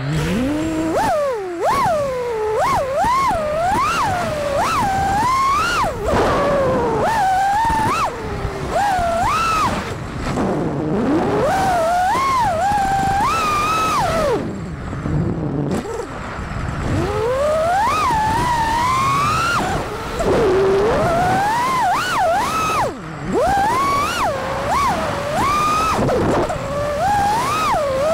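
FPV quadcopter's brushless motors whining, the pitch swooping sharply up and down with the throttle through freestyle manoeuvres, with a few brief lulls.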